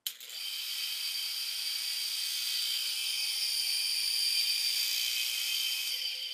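A 3 hp, 3,500 RPM single-phase induction motor switched on, coming up to speed almost at once and running with a steady high-pitched whine over a faint low hum. The sound cuts off abruptly near the end.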